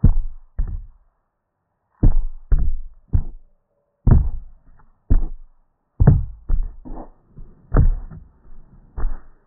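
About fifteen irregular dull thumps and knocks, each dying away quickly: handling noise from fingers bumping and tapping the phone and its microphone.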